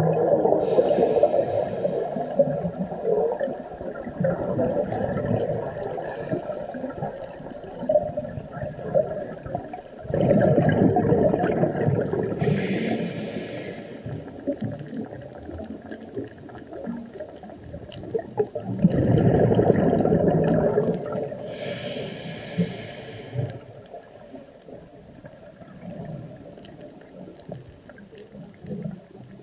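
Scuba regulator breathing heard underwater: the exhaled air bursts out as gurgling, rumbling bubbles about every nine or ten seconds, three times, with a short hiss at the regulator after each one and quieter bubbling in between.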